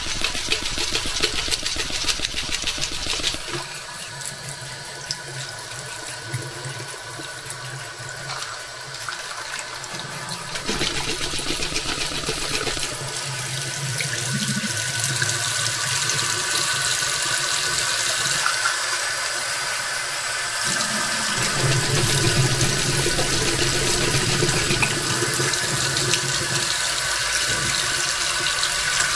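Bathroom tap running into a sink, the stream splashing into a small cup held under it as parts are rinsed. It runs steadily, growing softer about four seconds in and louder again near eleven seconds.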